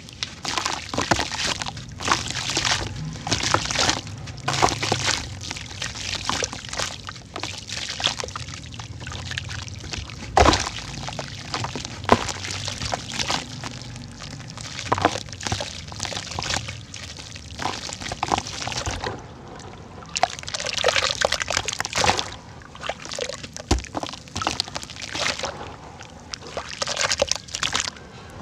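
Chunks of red dirt crumbling and breaking up in water: wet crackling, sloshing and splashing as pieces fall in, with sharp knocks and crunches scattered throughout.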